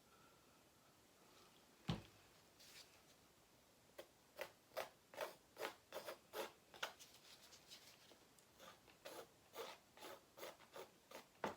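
Faint, quick scraping or rubbing strokes, about three a second, in two runs, with a single knock shortly before them.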